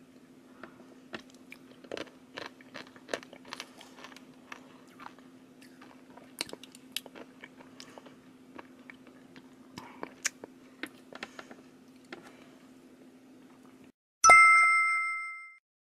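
Irregular small clicks and crunches from plastic spoons working the whipped Neruneru candy with its crunchy sprinkle toppings in a plastic tray, over a faint steady low hum. Near the end, a single bright chime rings out and fades over about a second and a half.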